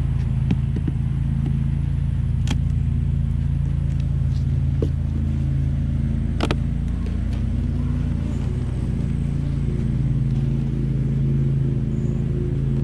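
Honeybees from an opened hive buzzing as a steady low hum, with a couple of sharp clicks about two and six seconds in.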